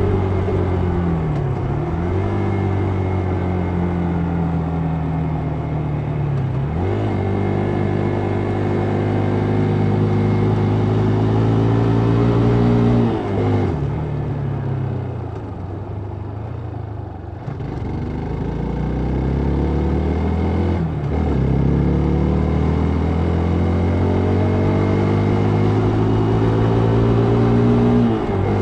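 Vehicle engine accelerating through the gears while riding. The pitch climbs slowly and drops sharply at each shift, about every six or seven seconds; the engine eases off briefly around the middle before pulling again.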